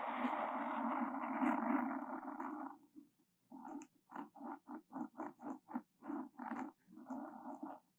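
ASMR 'floss' trigger: string drawn across the microphone with a rasping rub. It starts with one long stroke of nearly three seconds, then about ten quick back-and-forth strokes at roughly three a second, then another short drawn stroke near the end.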